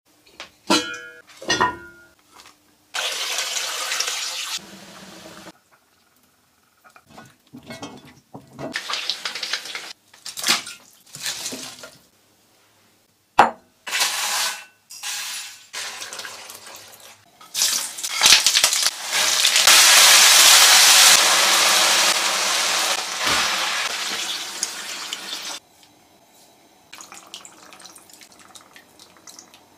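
A string of short kitchen cooking sounds broken by silent cuts: sharp knocks and clinks of cookware, dried chillies tipped from a glass into a ceramic bowl, and a steady hissing rush lasting about eight seconds past the middle.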